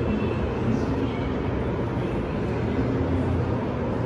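Steady background noise of a large indoor exhibition hall: an even low rumble with faint, indistinct voices in the distance.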